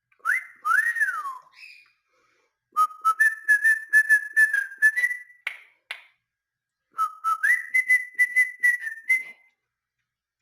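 A pet bird whistling: first a single rising-and-falling whistle, then two runs of quick, chirpy whistled notes with sharp clicks, each run lasting about two seconds.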